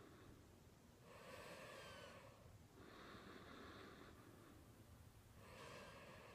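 A sleeping person snoring faintly in slow, regular breaths. A rasping breath carrying a thin whistle alternates with a softer, hissy breath, and the whistling breath comes back about every four and a half seconds.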